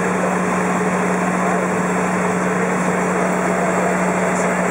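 Cessna light aircraft's engine and propeller drone heard from inside the cabin, steady and unchanging, with one constant low hum standing out.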